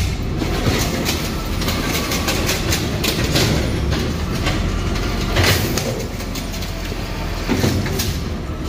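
Garbage truck running at a standstill with repeated knocks and rattles as its automated arm empties carts into the hopper, and a loud clatter about five and a half seconds in.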